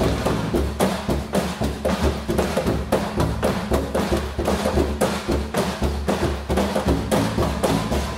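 Junk percussion ensemble beating drumsticks on found objects such as a metal wire rack and plastic drums: a fast, steady groove of many hits a second over a low bass pulse.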